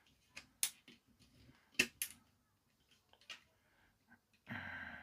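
Sharp small clicks and taps of plastic toy parts being handled and fitted together: a few separate clicks, the loudest pair about two seconds in, then a brief rustling noise near the end.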